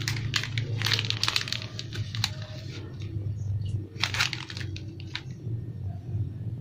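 Crinkling and crackling of a plastic biscuit wrapper (Roma Sari Gandum) as it is handled and set down, in quick clusters early on and again about four seconds in, over a steady low hum.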